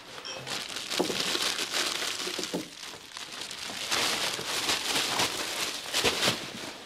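Cellophane wrapping of a flower bouquet crinkling and rustling as the bouquet is pushed down into a bag, with a few sharper crackles.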